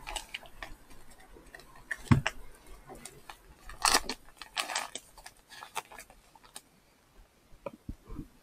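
Drone accessories and packaging being handled during unboxing: irregular small clicks, taps and rustles, with a low thump about two seconds in and a louder rustle about four seconds in.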